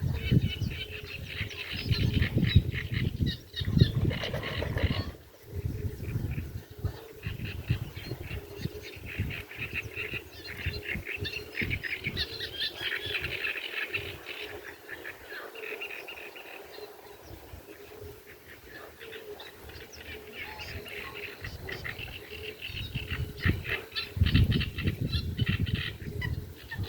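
A chorus of frogs calling in the breeding season: many overlapping, rapidly pulsed croaks throughout. Loud low rumbling bursts come in the first few seconds and again near the end.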